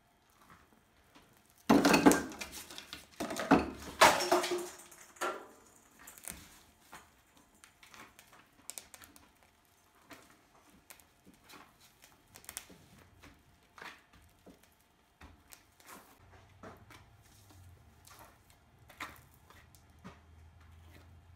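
Gloved hands working wet homemade sodium-silicate high-temperature cement onto a paper-wrapped pipe form: a loud burst of scraping and knocking about two to five seconds in, then quieter scattered pats, squishes and small taps as the cement is pressed into shape.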